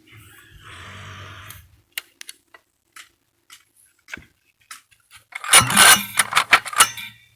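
Vintage Stihl 051 AV two-stroke chainsaw being pull-started: a short rasp and a few clicks, then nearly two seconds from the end the engine fires and sputters in loud, uneven bursts as it tries to catch. The saw starts but won't keep running, which the owner puts down to the carburettor or crank seals, unsure.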